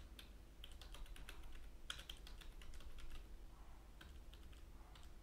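Faint typing on a computer keyboard: quick key clicks in short runs with pauses between them.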